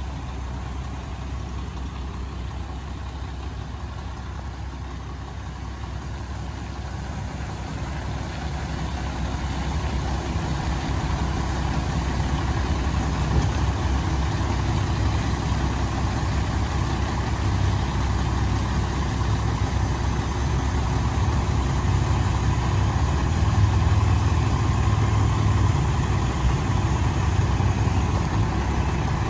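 Mack Granite rolloff truck's diesel engine running steadily while the hoist lowers the tipped compactor container back onto the frame. It grows louder about a third of the way in and then holds.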